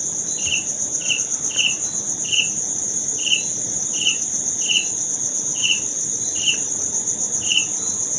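Insects chirping: a steady high trill, with a second, lower chirp repeating about once a second.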